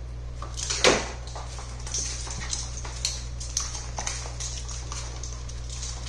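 Two dogs play-wrestling: one loud, sharp bark about a second in, then scrabbling and clicking of claws on the laminate floor.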